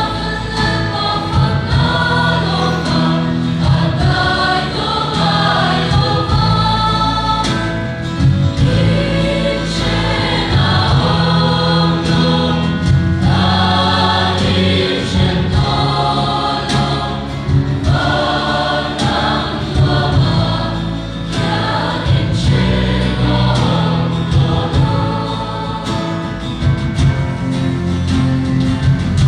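A choir singing a song with instrumental accompaniment, the voices carrying the melody over steady bass notes.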